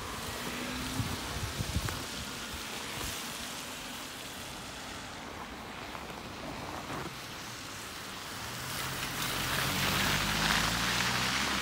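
A car passing close on a wet, slushy road: tyre hiss and engine noise swell from about eight seconds in and are the loudest sound. Before that there is steady hiss of wind and road noise, with a few soft knocks about a second in.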